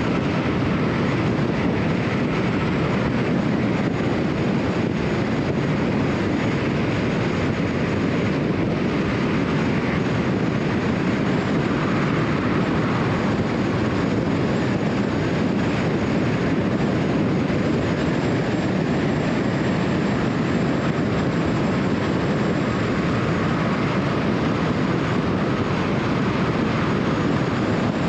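Steady road and tyre noise of a car driving at highway speed on a freeway.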